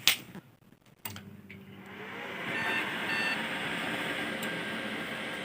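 Desktop PC powered on: two clicks, then the cooling fans spin up into a steady whir, and the motherboard speaker gives two short beeps about half a second apart. The beeps are a POST error code: the computer is not accepting the RAM.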